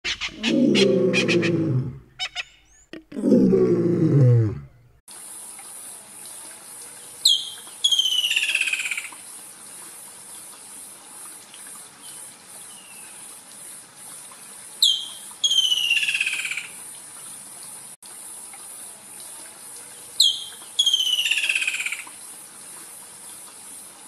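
A woodland kingfisher calls three times, each call a sharp high note followed by a long trill that falls in pitch, over a steady high hiss. A loud opening sound of two deep falling tones comes first and is the loudest thing heard.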